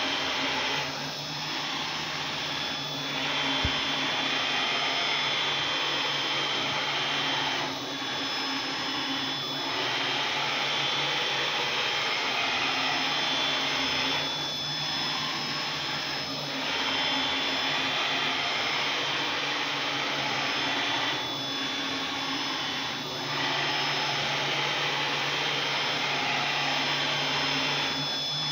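Mini CNC router's 500 W spindle whining steadily at high speed while stepper motors drive the gantry and head around, running in the air with no workpiece. The noise dips briefly in pairs, repeating about every seven seconds with the motion pattern.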